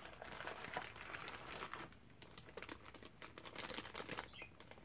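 Thin clear plastic bags crinkling and rustling as hands handle and turn them over. The rustling is busiest in the first two seconds, eases off, and picks up again near the end.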